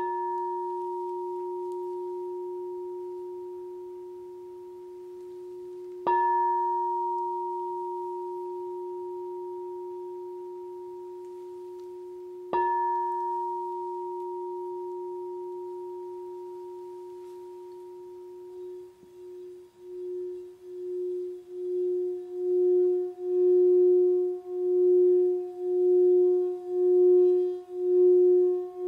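Crystal Tones Alchemy crystal singing bowl, tuned to F# minus 40 cents in the fourth octave, struck three times with a mallet, each strike ringing out in a long, slowly fading tone. In the later part the mallet is run around the rim, and the bowl sings in a steady tone that swells and pulses about once a second and grows louder.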